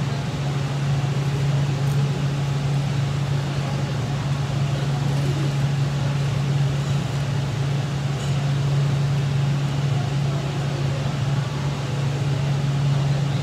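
Steady drone of a ventilation fan with a strong low hum, unchanging throughout.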